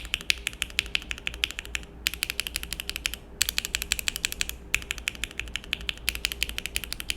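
Fast typing on a mechanical keyboard with linear switches (Gateron Milky Yellow Pro and Akko Matcha Green V3 Pro): quick runs of muted keystroke clacks, separated by short pauses.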